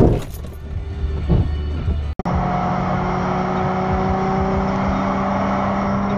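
Car cabin noise at highway speed: a steady engine and tyre drone with a low hum. It follows a loud, sharp knock at the very start, and the sound cuts out for a moment about two seconds in.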